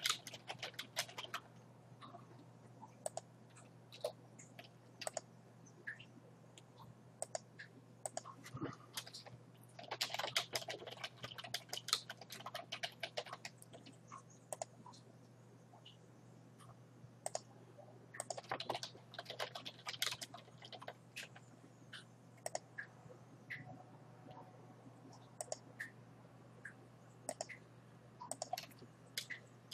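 Typing on a computer keyboard in quick bursts with pauses between, plus scattered single clicks, over a faint steady low hum.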